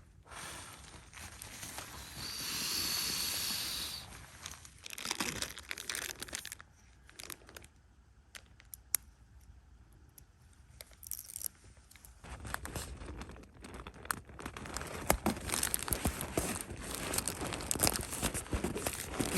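Crinkly rustling of sleeping-pad and pillow fabric, with the ripping of small Velcro strips being pulled apart and pressed on to hold the pillow in place. There is a steady hiss lasting about two seconds near the start, and a quieter stretch in the middle.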